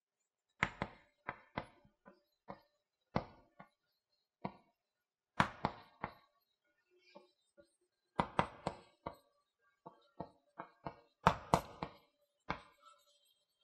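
Chalk clicking and scratching on a chalkboard as a line of handwriting is written: irregular sharp taps in quick clusters of strokes, with short pauses between words.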